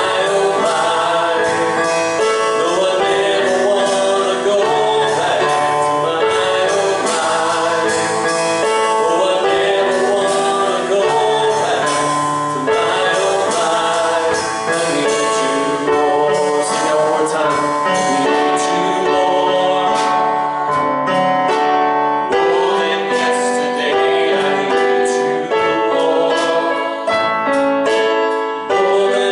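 Gospel worship song: a group of men and women singing together over instrumental accompaniment.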